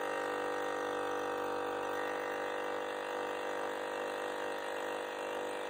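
Electric air compressor of a 1993 Toyota Itasca motorhome's rear air suspension running steadily as it pumps up the air bags: a little noisy, a steady hum with many overtones.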